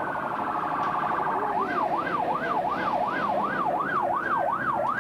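Sirens sounding. A slow rising-and-falling wail runs together with a fast warble. About a second and a half in, the warble changes to a yelp that sweeps up and down about three times a second, while the wail carries on.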